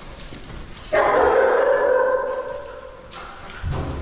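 A dog gives one long, drawn-out bark that starts suddenly about a second in, holds a steady pitch and then fades away.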